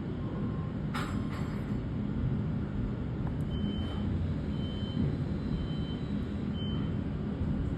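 Fire engine's diesel engine running with a steady low rumble, a short hiss of air about a second in, and a high-pitched beep sounding four times, roughly a second apart, through the middle.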